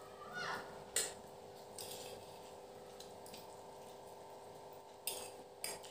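Metal spoons and forks clicking and scraping against plates of noodles: a sharp clink about a second in and two more near the end, over a faint steady hum.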